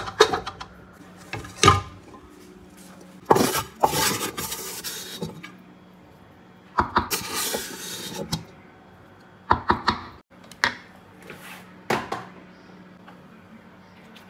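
A spatula scraping browned, stuck-on residue off the bottom of a metal pan: two longer stretches of scraping, with sharp knocks of the spatula against the pan before and between them and a few spaced taps near the end.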